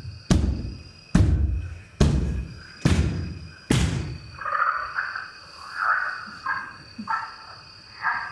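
Heavy drum beats, a little more than one a second, each ringing out before the next; they stop about four seconds in and give way to shorter, higher rasping sounds.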